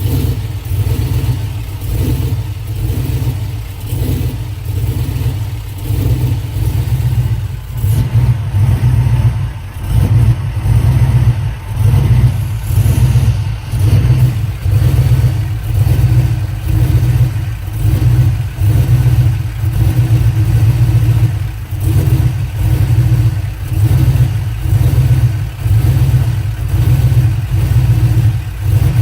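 Swapped 5.3-litre V8 running rough at idle, its loudness surging up and down about every second and a half, a rough-running misfire that the owner links to fuel pressure.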